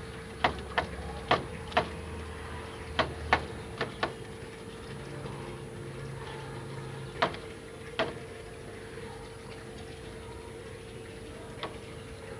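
A bird giving about a dozen short, sharp chip calls in irregular clusters, with longer pauses between them, over a steady faint hum.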